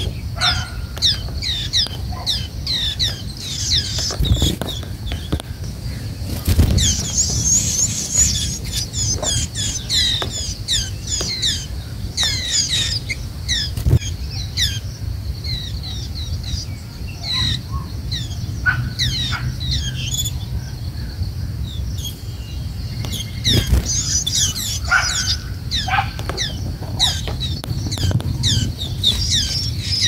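White-eyes calling at the nest: a rapid, dense stream of high, thin, down-slurred chirps that thins out for several seconds mid-way, then picks up again near the end. A low rumble and a few soft thumps run underneath.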